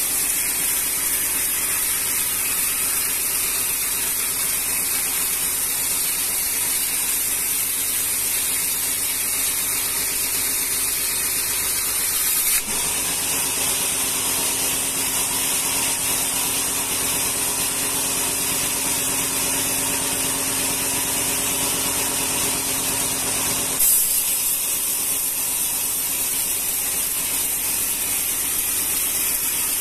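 Band sawmill running with a steady high hiss. About halfway through, the blade goes into a rengas log and a lower, fuller sawing hum runs for about eleven seconds. It ends with a brief knock as the cut finishes and the saw goes back to its lighter running sound.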